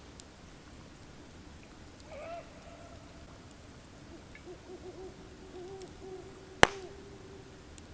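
An unidentified animal calling at night in the woods: a short pitched call about two seconds in, then a run of quavering, wobbling calls from about four and a half seconds on. A single sharp crack, the loudest sound, cuts in near the end of the calls.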